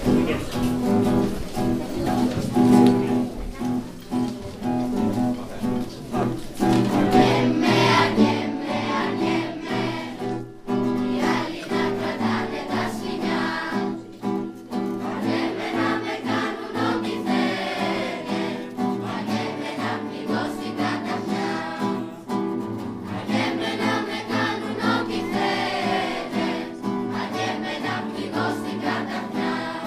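A children's choir singing a Greek song together, accompanied by an acoustic guitar.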